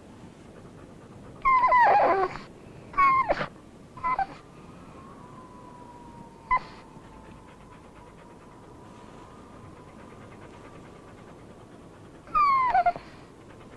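Akita dog whimpering: about five short, high whines that fall in pitch, with a faint thin whine held between them.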